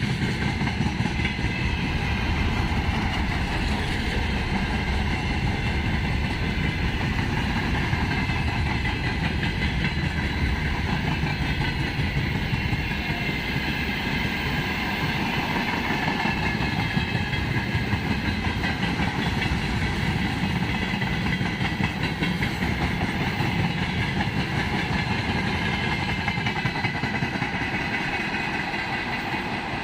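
A moving train running steadily along the track: a continuous, even rumble of wheels on rail.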